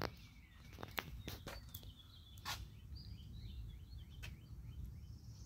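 Faint outdoor ambience: a low steady rumble with a few sharp clicks in the first half, and birds chirping in a quick run of short calls from about three seconds in.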